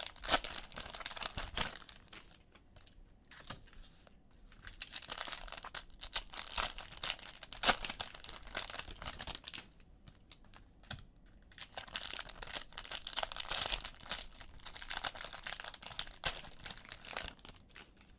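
Bursts of quick clicking and crinkling handling noise, with short quieter gaps between them.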